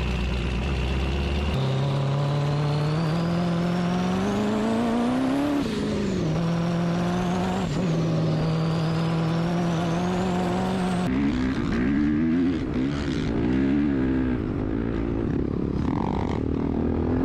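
A vehicle engine running and revving, its pitch climbing, dropping and holding, with a high whine that rises and falls along with it. About eleven seconds in, an engine revs up and down in quick blips.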